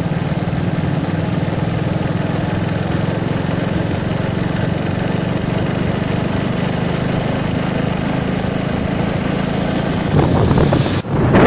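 Motorcycle engine running at a steady cruising speed, with road and wind noise. About ten seconds in, a louder rush of wind and road noise comes up.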